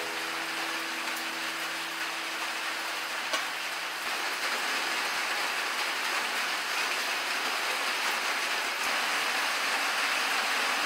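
Steady rain falling, an even hiss throughout. A few held notes of background music stop about two seconds in.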